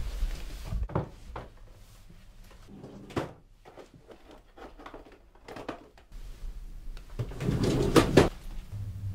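Desk drawer being opened and rummaged through: a few separate knocks and clicks, then a louder noise lasting under a second near the end.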